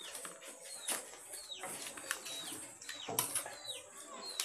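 A small bird's high chirps, each sliding quickly downward, repeated about once a second, with a few sharp clicks between them.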